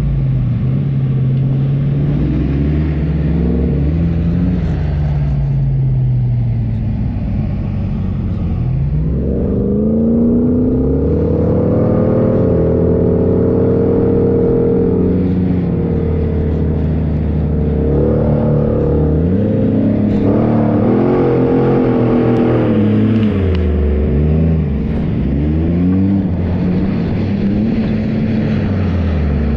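A 4x4's engine revving up and falling back again and again, its pitch rising and dropping every few seconds as it is driven off-road over desert sand.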